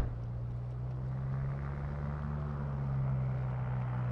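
Nerpa-1010 airboat, a Cummins diesel driving a large air propeller, running at speed: a low, steady drone that swells slightly about three seconds in.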